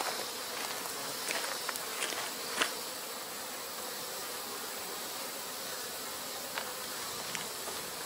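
Honey bees buzzing steadily around an opened Langstroth hive. There are a few light clicks and knocks as the wooden hive boxes are handled, mostly in the first three seconds.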